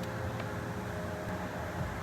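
Steady low machinery hum and rumble, with a couple of faint ticks.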